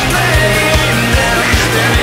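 Background music with a fast, steady drum beat.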